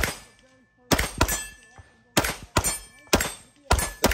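Rapid pistol fire from a Staccato 2011-style pistol, about eight shots often in quick pairs, with steel targets ringing after hits.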